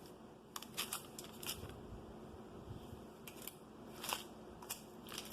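Faint, scattered clicks and crinkles as remote controls in shrink-wrapped plastic protective sleeves are handled.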